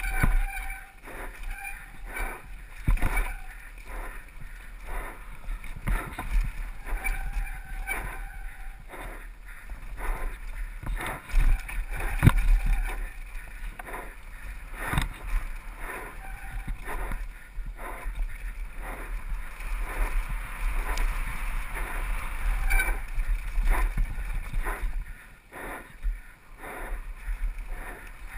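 Mountain bike running fast down a dirt singletrack, heard from a helmet camera: wind rumbling on the microphone, tyres on loose dirt, and the bike rattling and knocking over bumps many times.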